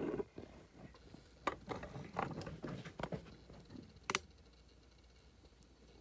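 Handling noise from a handheld camera being moved over a table: scattered clicks, taps and rustles, with sharp clicks about a second and a half in and about four seconds in, then quieter.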